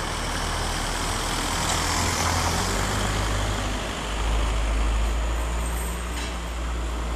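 Car engine running as a taxi passes close by on the street, a steady low hum with a deeper rumble swelling about four seconds in.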